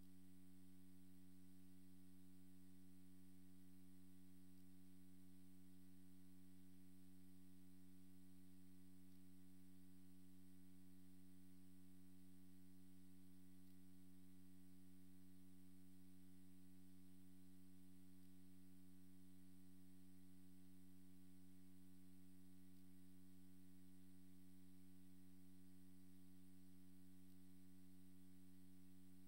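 Near silence with a steady low electrical hum of several even tones and a faint hiss, as from the sound system's feed.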